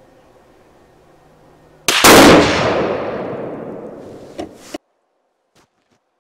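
A single rifle shot from a Winchester Model 70 chambered in .270 Winchester, fired about two seconds in, with a long echoing decay. Two short clicks follow before the sound cuts off abruptly.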